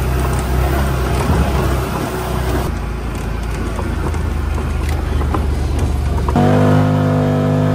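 Side-by-side utility vehicle driving across a field, its engine running steadily, with background music mixed over it; a held chord of music comes in about three-quarters of the way through.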